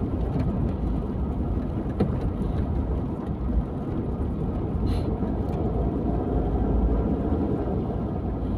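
Steady low rumble of a car driving along a road, its engine and tyre noise, with a couple of faint ticks.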